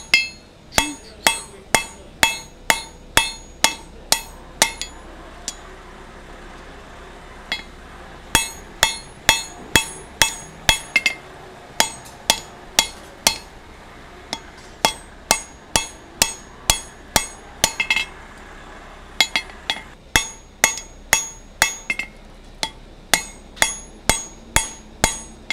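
Hand hammer striking red-hot square mild steel stock on an anvil, drawing out a taper. The blows come in runs of about two or three a second, each with a short metallic ring, broken by a few brief pauses.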